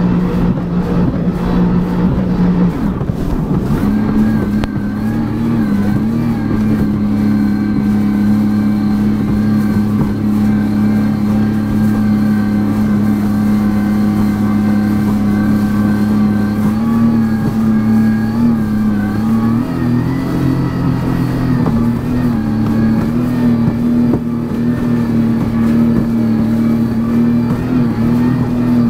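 Sea-Doo jet ski engine running at a steady cruising speed, heard from the rider's seat. Its pitch rises about four seconds in, sags a little past halfway, then picks back up.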